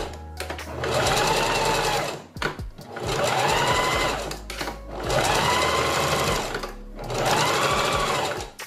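Electric sewing machine stitching a hair track onto a wig cap in four short runs with brief pauses between. Its motor whine rises and falls in pitch with each run.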